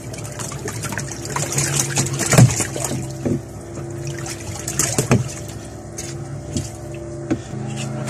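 Water splashing and trickling in a twin tub washing machine's tub over a steady hum, as the machine is tested with water for leaks at the resealed gearbox.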